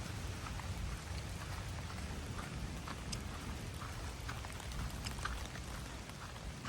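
Light rain falling, with scattered drops tapping sharply close by over a steady low rumble.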